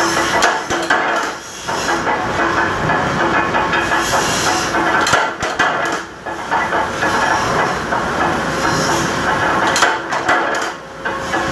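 Mechanical punch press running with steady loud machine noise. A few sharp metallic clanks come as the press strokes, cutting hand-fed metal channel stock: near the start, around the middle and near the end.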